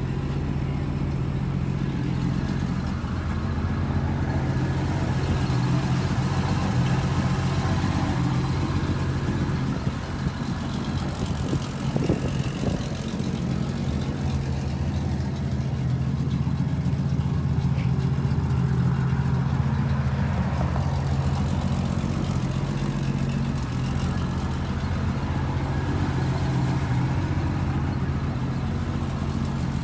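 Ford Mustang inline six-cylinder engine idling steadily.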